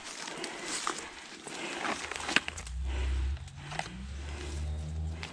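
Dry leaf litter rustling and crackling as clusters of honey mushrooms are picked by hand, with a few small snaps. A low rumble comes in about two and a half seconds in.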